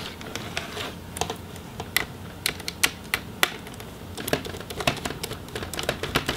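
Screwdriver turning out the small display-hinge screws of a laptop: irregular light clicks and ticks, a few a second.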